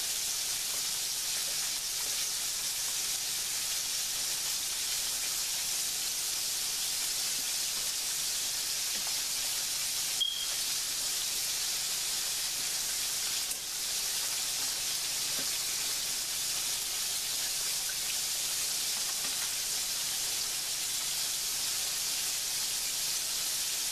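Battered bacon strips deep-frying in hot grease at about 300 degrees, a steady even sizzle. A single short tick sounds about ten seconds in.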